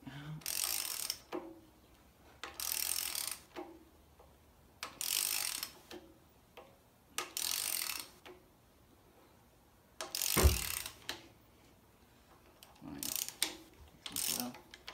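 A ratchet wrench clicks in short runs about every two seconds as it is swung back and forth on the 19 mm bolt that draws the harmonic balancer onto a Jeep 4.0 inline-six's crankshaft. A single heavy knock comes about ten seconds in.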